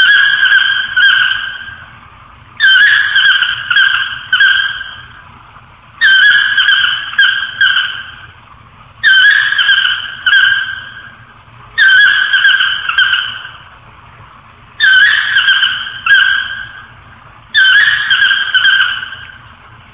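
An animal calling over and over. Each call is a sharp first note followed by two or three quick ringing notes, lasting about two seconds, and the calls come about every three seconds.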